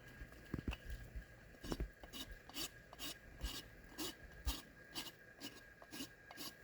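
Hoof rasp filing a horse's hoof wall in short, even strokes, about two to three a second, rounding the hoof's edge into a roll. A couple of low knocks come in the first two seconds before the strokes settle into their rhythm.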